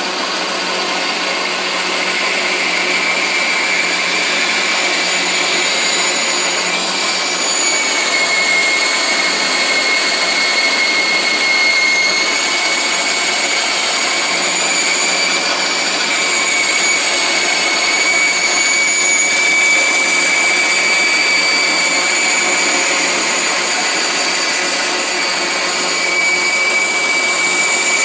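Bandsaw running steadily with a high whine, cutting curved arcs in small wood pieces.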